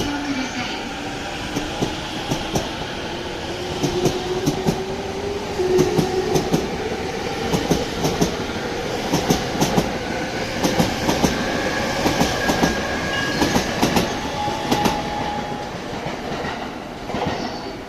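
E235-1000 series electric train running through the station, its traction motors giving a whine that slowly rises in pitch while the wheels clack over rail joints.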